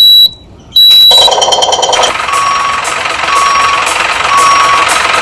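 Loud electronic beeps, then a truck's reversing alarm beeping about once a second over a steady hiss.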